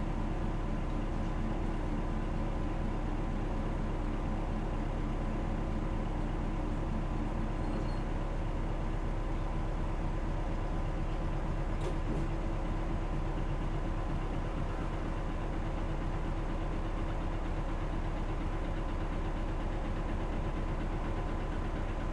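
A 2001 city bus's diesel engine running steadily at an unchanging pitch, heard from inside the passenger cabin, with a faint click about halfway through.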